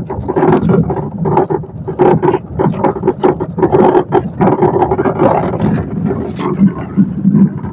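Repeated irregular knocking and clunking from a 2012 Honda City's electric power steering rack as the car runs over a rough, potholed road, over steady road and cabin rumble. The knock comes from a worn steering rack bush, with some noise from worn shock absorber mount bushes as well.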